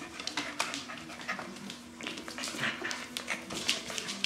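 Brown standard poodle puppies moving about and playing at close range, making irregular clicks and scuffling sounds.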